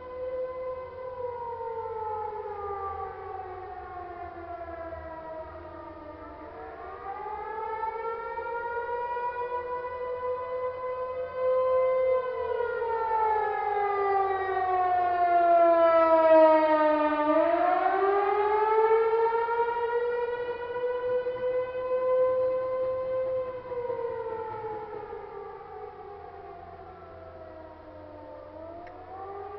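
American Signal Tempest outdoor warning siren wailing: its pitch slides slowly down and up, about one full rise and fall every eleven seconds, in the attack signal of the monthly test. The sound swells and fades in loudness as it goes.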